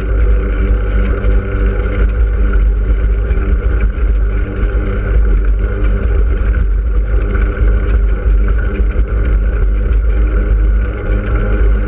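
Steady wind rumble and road noise picked up by a camera on a vehicle moving along a road, with a steady hum underneath.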